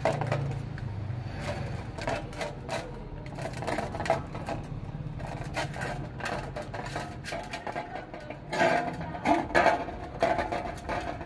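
Dog eating from a steel bowl: a rapid run of short clicking, smacking mouth sounds, with the metal bowl clinking and rattling louder about eight to ten seconds in.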